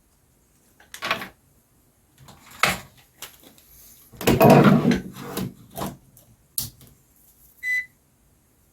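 Clicks, knocks and rustling from hands handling a mains plug, its fuse and a multimeter on a workbench, loudest about four to five seconds in. There is one short high beep near the end.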